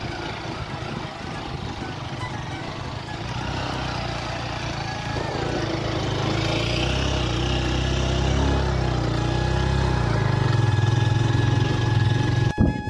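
Motorcycle running along the road, its engine rumble and road noise growing louder from about halfway through, then cutting off suddenly near the end.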